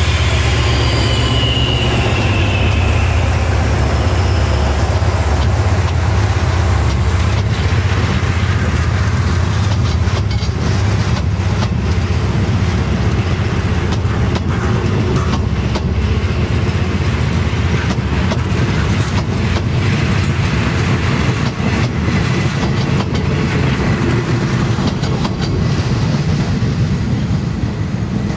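Departing passenger train: the Hitachi diesel-electric locomotive's engine drones heavily as it passes, then the coaches' wheels click over the rail joints as the train moves off. The sound eases a little near the end.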